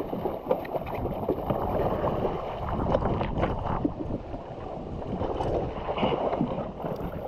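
Wind buffeting a GoPro action camera's microphone over choppy sea, with water splashing and slapping irregularly around a jetski.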